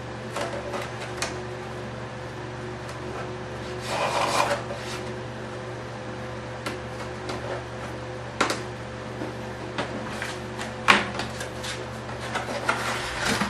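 Hands working hinge tape onto a foam model airplane's tail: rubbing and rustling with scattered light taps and clicks, a longer scrape about four seconds in and a sharp click near eleven seconds, over a steady low hum.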